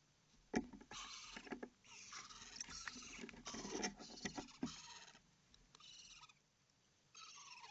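Owlets shuffling and scratching about in a wooden nest box: a sharp knock about half a second in, then several short bouts of scratchy rustling and scraping, and one more near the end.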